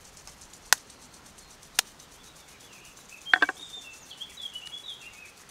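Sharp taps of a knife blade knocked against an egg's shell to crack it: two single taps about a second apart, then a quick cluster of clicks. A small bird chirps in the background after the cluster.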